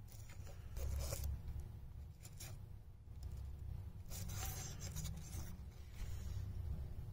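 Rubbing and scraping handling noise as the sections of a fly rod are handled, in three spells, the longest about four seconds in, over a low rumble from the phone being held in the hand.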